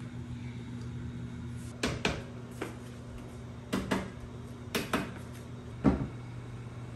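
A series of sharp knocks from the particleboard panels and fittings of an IKEA Kullen flat-pack dresser being put together, several coming in close pairs, over a steady low hum.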